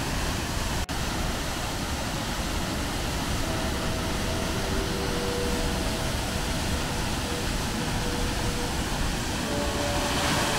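Waterfall cascading down a narrow rock gorge: a steady rushing of water, broken by a momentary dropout about a second in.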